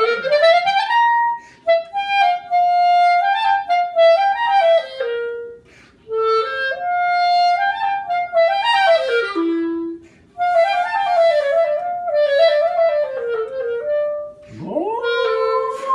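Clarinet playing short melodic phrases separated by brief pauses. Near the end a Siberian husky starts a howl that slides up from low and then holds its pitch.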